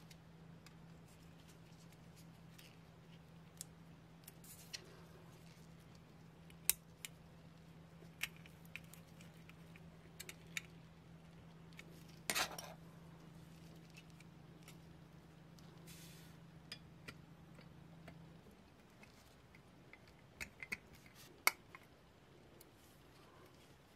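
Scattered light clicks and taps of small hard objects being handled, over a steady low hum that cuts off about 18 seconds in.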